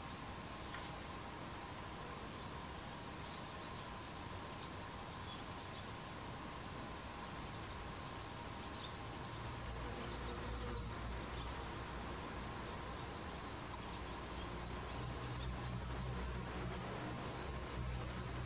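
Outdoor ambience: a steady hiss with scattered faint, short high chirps. A low rumble comes in about halfway through.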